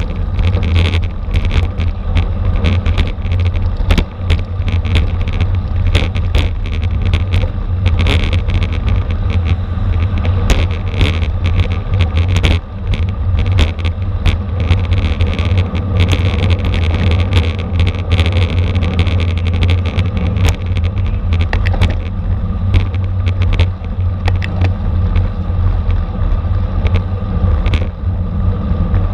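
Heavy wind buffeting and road rumble on a moving camera's microphone, with frequent sharp clicks and rattles, as from a camera riding along with a racing bicycle at speed.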